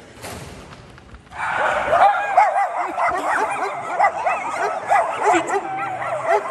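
Dogs whining and yipping excitedly, many high calls overlapping in a continuous stream that starts about a second and a half in.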